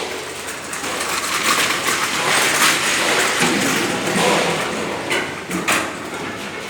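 Clattering and knocking, as of hard objects being handled, with two sharper knocks about five seconds in.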